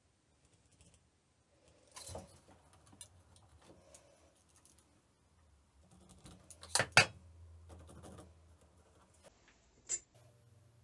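Quiet handling of hand tools on a wooden block and workbench: a pen scratching marks onto the wood, with light taps and clicks as a metal square and a tape measure are handled. The loudest is a sharp double click about seven seconds in, with one more click near the end.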